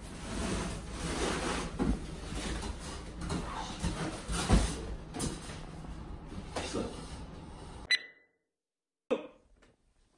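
Stiff cardboard panels of a homemade car costume scraping and knocking as the person inside unfolds it and stands up into a robot shape. The sound cuts off suddenly near the end, followed by a single knock.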